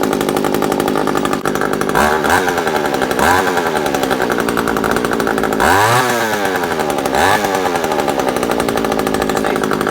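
Homelite 26cc two-stroke strimmer engine running and warming up after a carburettor rebuild, blipped up in revs four times and dropping back each time. Two holes drilled in the exhaust let it run a little louder.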